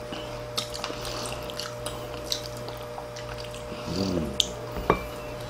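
Close-up eating sounds: wet chewing and mouth smacking over braised kimchi and pork back ribs, with small chopstick clicks. A short hummed "mmm" comes about four seconds in, and a sharp clink a second later.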